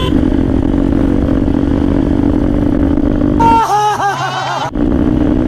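Motorcycle engine running steadily while riding. About three and a half seconds in, it is abruptly cut off for about a second by a different sound with a wavering, bending pitch, then returns.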